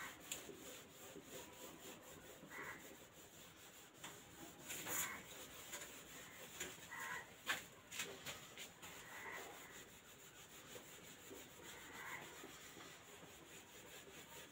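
Faint rubbing of a whiteboard being wiped clean by hand, uneven strokes with a couple of sharp taps along the way.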